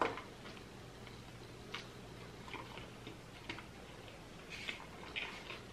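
Close-miked chewing of a taco: faint, irregular wet mouth clicks.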